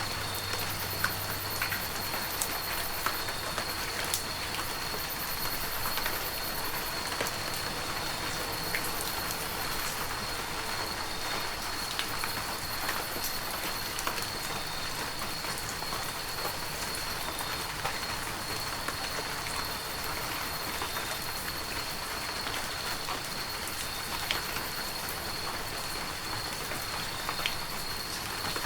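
Heavy rain falling steadily, a dense hiss of rain with many individual drops ticking through it. A thin, steady high tone runs underneath throughout.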